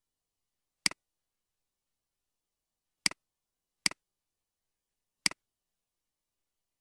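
Four computer mouse clicks spaced unevenly over a few seconds, each a sharp click with a fainter second tick right after, with silence between.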